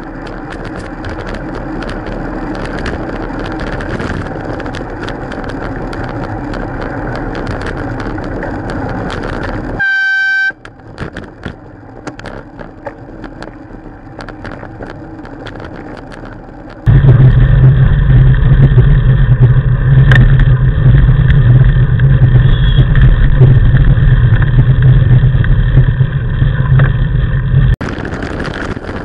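Wind and road noise on a bike-mounted camera. About ten seconds in, a car horn sounds once for under a second. Later, heavy wind buffets the microphone with a loud low rumble.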